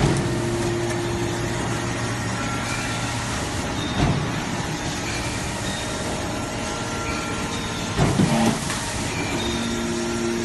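Hammer press for compacting iron and steel scrap running with a steady mechanical noise, with a heavy knock about every four seconds; the knock near the end comes as two quick strikes.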